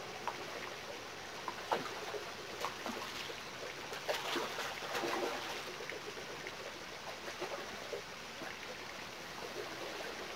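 Water splashing and trickling as a hooked fish thrashes at the surface while being reeled in, with a flurry of splashes about four to five seconds in.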